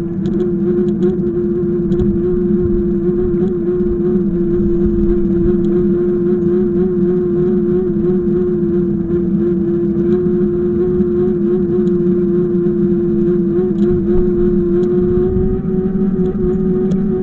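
A vehicle on the move at a steady pace: a steady whine holding one pitch, rising slightly near the end, over a low road rumble, with occasional light clicks and rattles.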